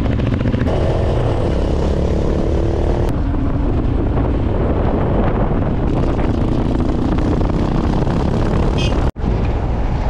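Motorcycles running along a road, recorded from a moving bike: a steady engine drone under heavy wind rumble, with a second motorcycle's engine tone coming and going as it rides close. The sound drops out for an instant about nine seconds in.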